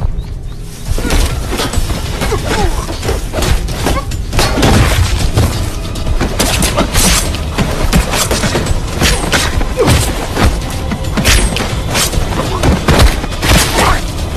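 Dense film sound effects: a string of booms, thuds and shattering crashes over a low rumble and music, starting about a second in.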